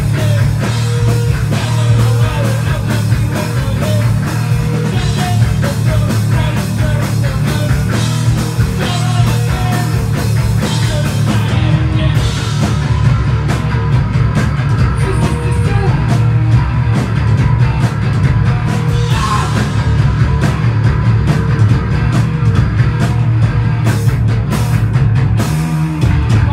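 Punk band playing loud and live: pounding drums and heavy, distorted low end, running without a break.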